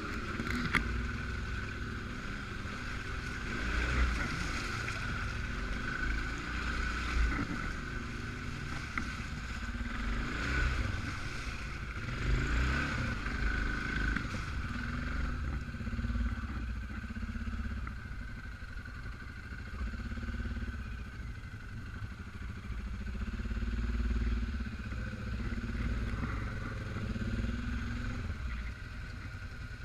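Suzuki KingQuad 750 AXi ATV's single-cylinder engine running on an off-road ride, its note rising and falling with the throttle, over a steady high whine.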